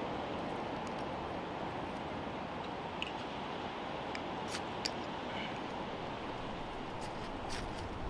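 Steady wind, with a few short, sharp scrapes of a striker down a ferrocerium rod throwing sparks into tinder, a pair about halfway through and another few near the end.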